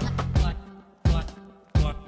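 Background music: a pitched track whose bass line breaks off about half a second in into single sharp hits, one about every 0.7 s, each fading away.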